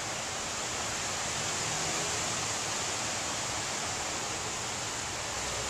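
Steady hiss of a storm: wind through the tree leaves with rain, holding an even level throughout.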